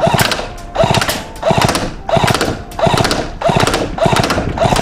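ICS MP5 airsoft electric gun firing three-round bursts over and over, about one burst every two-thirds of a second. Each burst is a quick mechanical rattle of the gearbox cycling.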